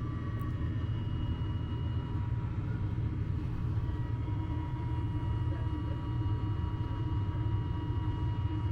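Jet aircraft engines running steadily: a low rumble with a faint high whine held on one pitch.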